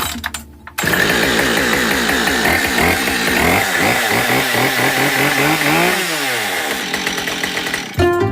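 Husqvarna 572 XP two-stroke chainsaw running loud. It comes in abruptly about a second in, its revs swinging up and down, dropping low around six seconds and climbing again, then it cuts off shortly before the end.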